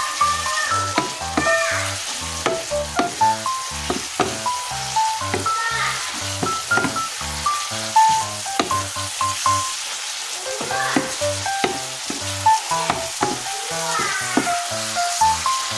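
Beef strips and sliced onions sizzling in a frying pan as they are stirred with a wooden spatula, over background music of short plucked notes with a steady bass.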